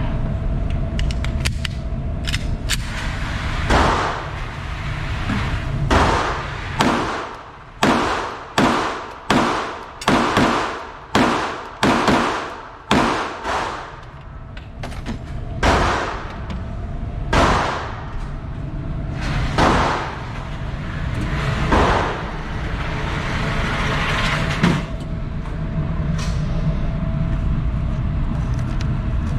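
Handgun shots: a quick string of about ten, roughly one every half second, then a few slower single shots, each with a short echoing tail, over a steady low rumble.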